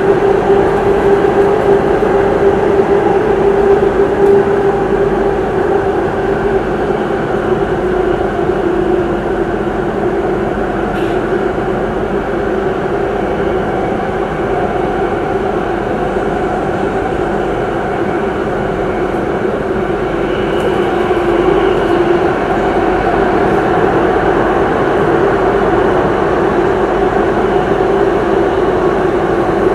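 Singapore MRT Circle Line train running through a tunnel between stations, heard inside the carriage: a continuous rumble of wheels and running gear with a steady hum over it, dipping a little in loudness midway.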